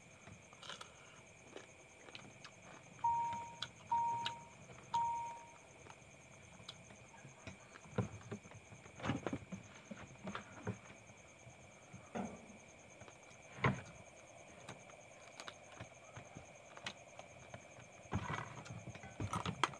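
Crab mukbang eating sounds: cracking and sucking small cooked talangka crab shells and chewing, in scattered clicks and crunches, the sharpest about fourteen seconds in and a cluster near the end. About three seconds in come three short beeps at one pitch, a second apart.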